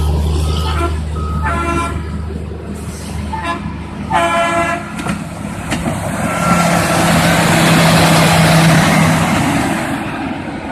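Railroad track-maintenance machines travelling past on the rails, their diesel engines running with a steady low drone, and two short horn toots, about two and four and a half seconds in. A louder machine passes close from about six to ten seconds, with a rushing noise over its engine.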